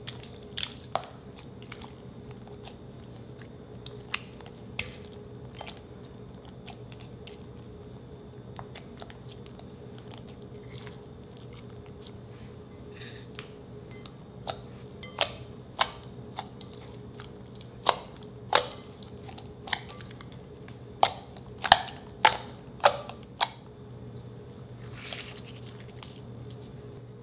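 Fresh white slime being squished and kneaded by hand, giving sticky clicks and pops as it pulls apart and traps air. The pops are sparse at first and come thick and loud in the second half, over a faint steady hum.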